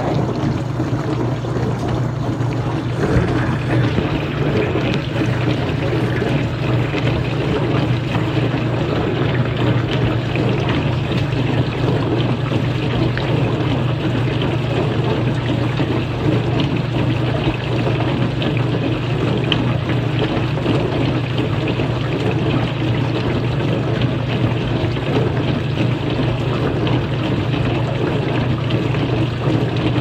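Kenmore dishwasher running its wash on a cleaning cycle: a steady low hum from the pump motor under water splashing inside the tub.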